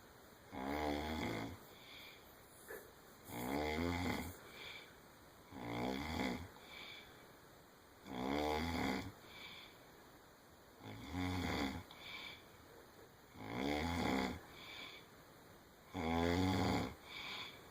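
A sleeping person snoring: seven snores of about a second each, coming regularly every two and a half seconds or so, with quiet breathing between them.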